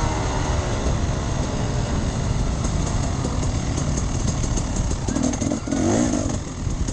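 Enduro motorcycle engine running while ridden off-road, its note rising and falling with the throttle over a steady low rumble.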